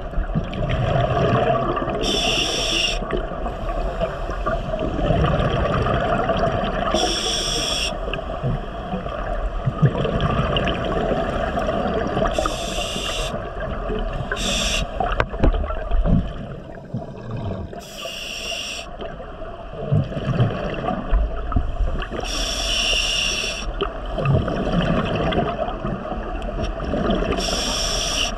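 Scuba diver breathing through a regulator underwater: a hiss of inhalation about every five seconds, with exhaled bubbles gurgling and rumbling between breaths.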